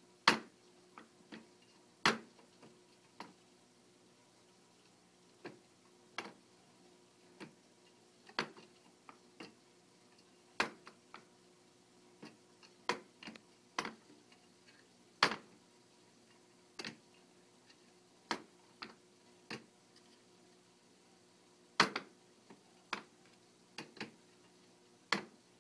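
Wire door of a plastic pet carrier clacking against its frame again and again as a cat inside pulls it shut and it swings open: irregular sharp clacks, a handful of loud ones among many lighter taps.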